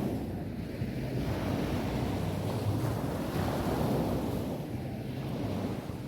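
Sea waves breaking and washing up a beach, swelling about two seconds in and easing off near the end, over a low rumble of wind on the microphone.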